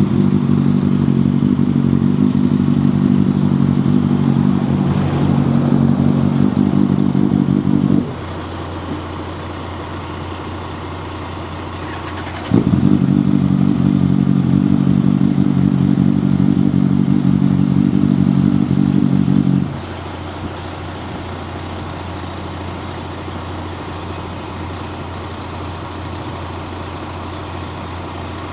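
Motorcycle engine running close by. It cuts out after about eight seconds, starts again sharply about four seconds later, runs for another seven seconds and stops. A steady low hum continues underneath throughout.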